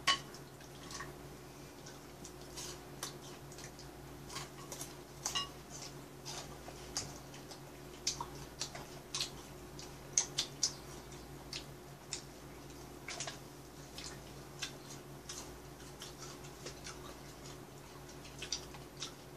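Eating sounds: chopsticks clicking and tapping against plates and foil, with crunchy chewing of fried chicken gizzards, in irregular sharp ticks a few times a second. A low steady hum runs underneath.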